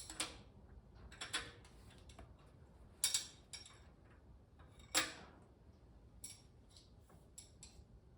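Light metallic clicks and clinks at irregular intervals, two louder ones about three and five seconds in: steel push rods and tools being handled and set into place in a Farmall A engine's head.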